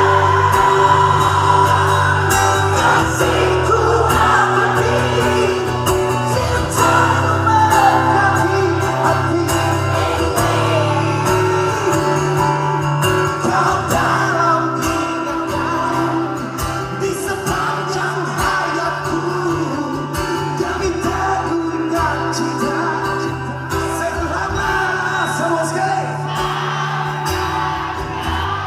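Live band playing a pop song, with singing over a steady bass line.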